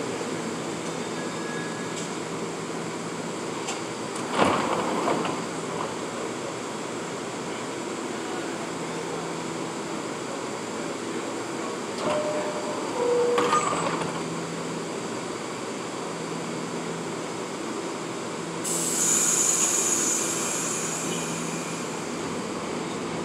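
An R68 subway train standing at the platform with its steady equipment hum. A knock comes about four seconds in as the doors work, a two-note falling door chime sounds halfway through with the doors closing, and a loud hiss of air follows near the end.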